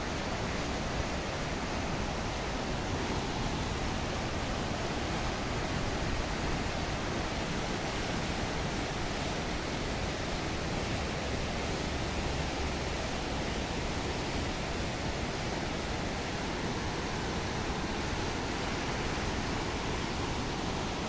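River water rushing through the open gates of a weir and churning over the rapids below, a steady, unbroken roar of white water.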